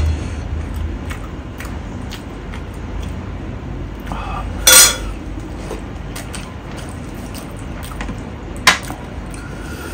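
Fingers mixing rice and gravy on a steel plate, with light scraping and two sharp metallic clinks against the plate: a loud one about halfway through and a smaller one near the end.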